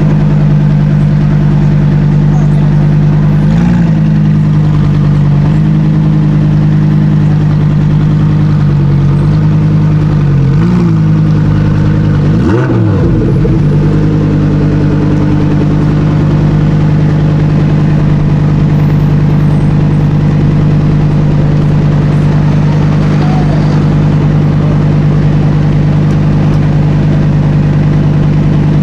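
A car engine idling steadily, with brief throttle blips about 4 and 11 seconds in and a short rev around 12 to 13 seconds in.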